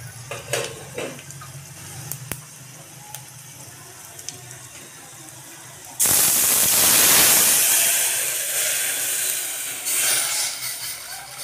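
Vegetable stock poured into hot oil tempering in a metal pot: a sudden loud sizzle and hiss starts about six seconds in and slowly fades as the liquid keeps pouring. Before it, only a few light clicks over a low hum.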